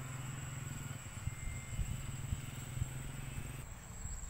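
Steady low drone of a distant engine, which stops near the end, over a thin, steady, high insect buzz. A few soft low knocks come in the middle.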